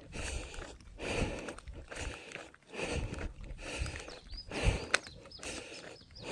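Footsteps on a mountain trail with hard, uneven breathing of someone running uphill, in rough bursts about once a second and a sharp click just before five seconds in.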